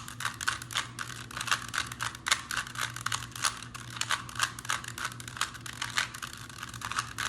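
Rubik's Cube being turned rapidly by hand mid-solve, its plastic layers clicking and clacking several times a second in an uneven stream.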